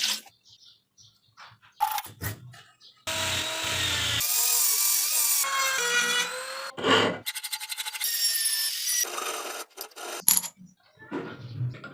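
Short, abruptly cut snippets of power-tool work on rusty steel pliers: a motor-driven tool whining steadily against the metal for several seconds in the middle, with sharp clicks and brief scraping sounds in the pieces before and after.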